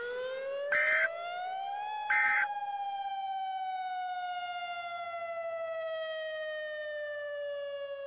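A siren wail in the style of a civil-defense siren: the pitch rises for about two seconds, then slowly falls for the rest. Two short, loud bursts of noise cut in, about one second and two seconds in.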